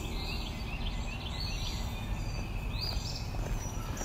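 Outdoor ambience over forested hills: small birds chirp in short repeated calls over a steady low rumble.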